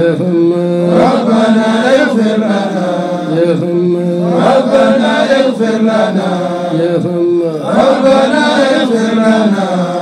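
Melodic chanting of an Arabic Sufi poem: a voice holds long notes with gliding ornaments, in phrases separated by short breaths.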